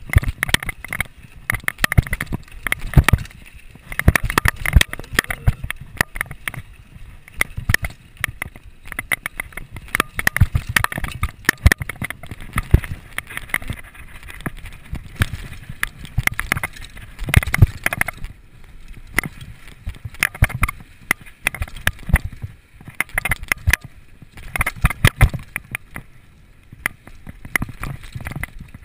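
Downhill mountain bike rattling over a rough, rocky dirt trail at speed: tyres on loose dirt and rock with a steady stream of irregular knocks and clatter from the bike.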